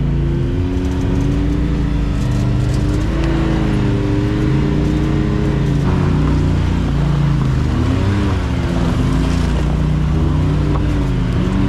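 Can-Am Maverick X3 side-by-side's turbocharged three-cylinder engine pulling under load, its revs rising and falling over and over as the machine climbs an icy slope.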